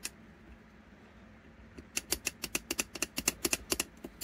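A quick run of small metallic clicks over the last two seconds, about eight a second. A wood screw threaded into a stuck wrist-pin piece is being worked and backed out of the crankcase of an OS FS-120 Surpass four-stroke glow engine, and the piece stays seized.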